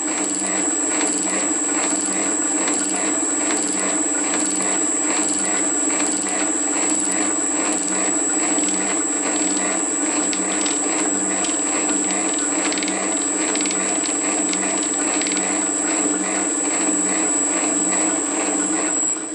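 Atlas 7B metal shaper running on its new motor under a Siemens G110 VFD: a steady motor and gear hum with a high inverter whine, and a regular click about every 0.7 s from the reciprocating ram and the table cross-feed ratchet indexing. It runs quietly, and begins to wind down at the very end.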